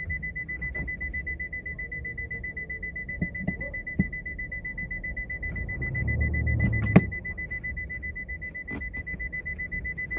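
A steady high-pitched whine at one pitch, with a few sharp clicks and knocks of parts being handled, the loudest click about seven seconds in.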